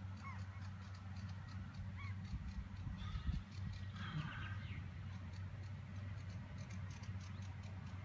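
Tractor and round baler working in the distance, a steady low drone, with gulls calling overhead in short squealing calls, most of them bunched around the middle. A low thump about three seconds in.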